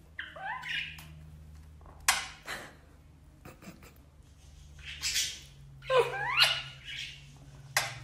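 Pet parakeets, a blue Indian ringneck and an Alexandrine, making mimicked kissing sounds: short chirps that swoop up and down in pitch near the start and again past the middle, with a couple of sharp smacks, about two seconds in and near the end.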